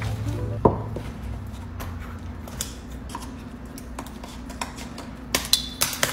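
Scissors cutting the stiff shank of a pointe shoe, with a few sharp snips near the end and handling clicks earlier, over a low steady hum.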